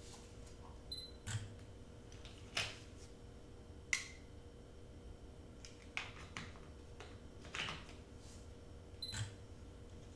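Quiet room hum with small, sharp clicks and taps scattered through it, about eight in all, from hands handling pieces on a craft mat. Two brief high beeps come about a second in and again near the end.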